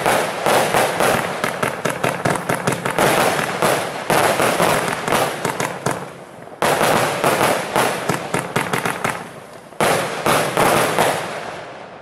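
A 144-shot consumer firework cake (Nico Europe 'Free the Beast') firing rapid volleys of shots and crackling bursts, in loud waves that start again about three, four, six and a half and ten seconds in. The last volley dies away near the end as the cake finishes.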